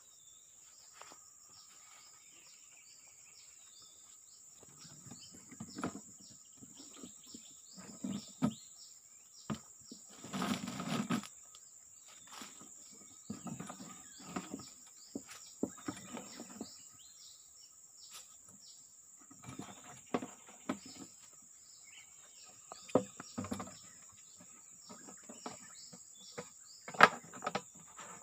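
A steady, high-pitched insect drone from crickets or cicadas. From about five seconds in, irregular rustling and handling knocks come close to the microphone, with the sharpest knocks near the end.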